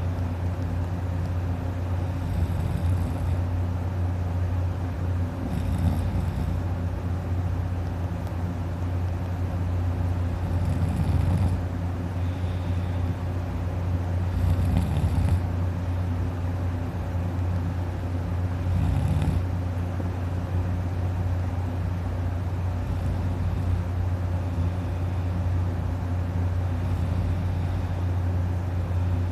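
A man snoring heavily while asleep on his back: loud, rattly snores come roughly every four seconds, the strongest in the first two-thirds, over a steady low hum.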